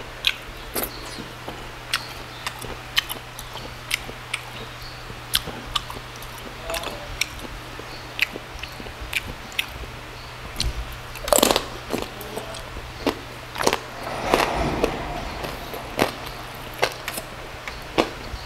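Close-miked chewing of crispy lechon liempo (roast pork belly): a steady run of short, sharp crunches and wet mouth clicks, with louder bursts of crunching about 11 and 14 seconds in.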